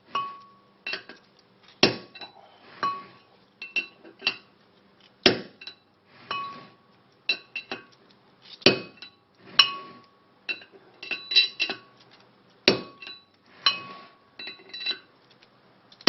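Hammer blows on steel, knocking the larger part of an old front wheel bearing off the hub: a few heavy strikes about every three and a half seconds with lighter taps in between, each with a short metallic ring.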